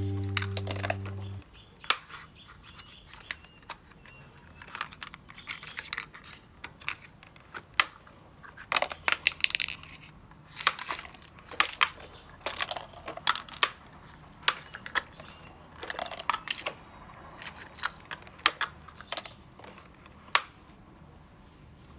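Hard plastic toys clicking and clattering in irregular knocks as a toy excavator's plastic bucket scoops them up and tips them into a plastic toy dump truck. A short tune cuts off about a second in.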